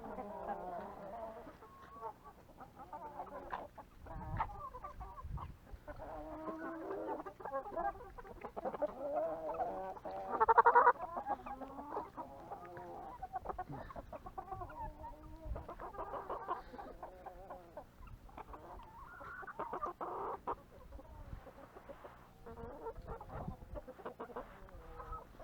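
A flock of chickens clucking on and off, with one louder call about ten and a half seconds in.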